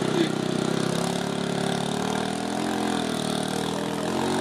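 Small motorboat engine running under way, a steady pulsing drone whose pitch dips and rises slightly in the middle.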